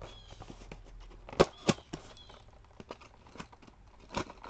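Box cutter slitting the packing tape on a cardboard box, with scattered sharp clicks and taps as the blade and box are handled, the loudest about a second and a half in and near the end.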